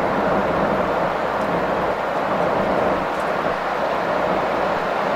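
Steady road and engine noise of a Scania R450 truck cruising at a constant speed, heard inside the cab: an even drone with no changes in pitch or gear.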